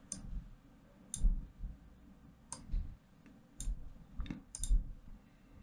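Computer mouse buttons clicking: about seven short, sharp clicks at irregular intervals, two of them close together near the end.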